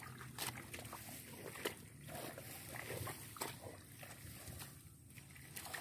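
Faint squelching and slopping of hands digging through wet rice-paddy mud, with a few small sharp clicks.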